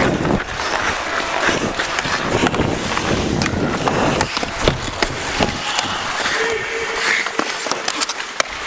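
Ice hockey skates scraping and carving across the ice, with sharp clicks and knocks of a stick handling the puck and bumping on the ice, heard close up from the skating player.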